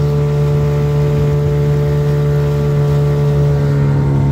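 Hangkai 12 hp outboard motor running steadily at high speed, pushing a small jon boat across the lake.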